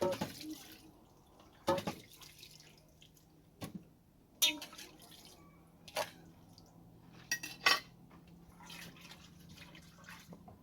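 Water splashing and dripping as hands are rinsed, with several sharp knocks and clinks of pots and dishes.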